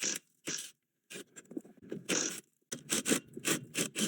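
Socket wrench working the 17mm caliper bracket bolts loose: irregular runs of metallic clicks and scrapes, broken by short silent gaps.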